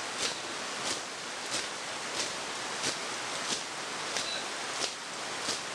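Heavy rain falling steadily, with sharp taps in an even marching beat, about three every two seconds.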